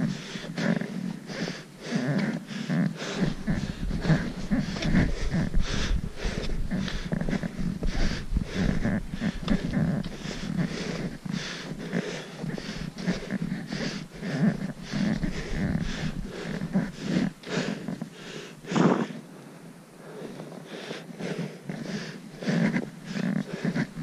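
Footsteps crunching in packed snow, about two steps a second, with the walker's heavy breathing. About three-quarters of the way through there is one louder crunch, then the steps go quieter for a few seconds before picking up again.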